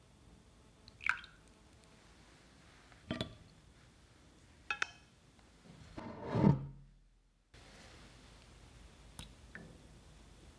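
Light clinks of a fine-mesh metal strainer against a glass measuring jug while custard mixture is strained, three sharp clinks a second or two apart. About six seconds in comes a louder, longer sound that falls in pitch and cuts off sharply.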